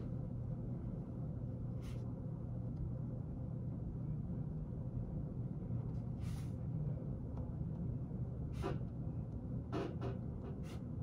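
Steady low room hum, with a few short scratches of a pen writing on paper about 2 and 6 seconds in and several more near the end.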